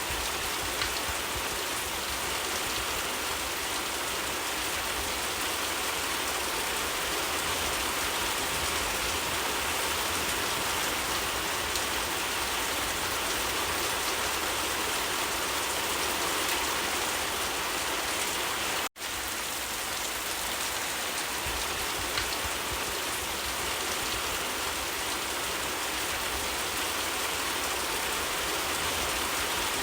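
Steady rain falling on leaves, an even patter and hiss with no letup. About two-thirds of the way through it cuts out completely for a split second and comes straight back.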